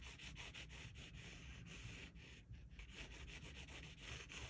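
Watercolour pencil scratching faintly on sketchbook paper in quick back-and-forth shading strokes, with a brief pause about halfway through.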